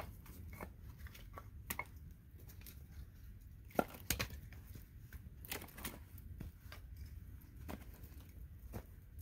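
Split kindling pieces knocking and clacking against each other as they are picked up and stacked into an armload, with rustling of a jacket and gloves. The sharpest clacks come about four seconds in.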